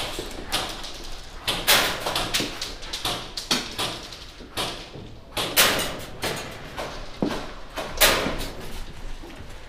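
Irregular sharp knocks and bangs, several a second, a few of them loud, echoing in bare rooms.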